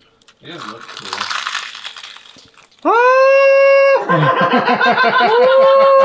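A few seconds of crackly noise, then a man's voice holding a long, high falsetto note of delight through a full mouth. The note wavers in the middle, then is held steady again.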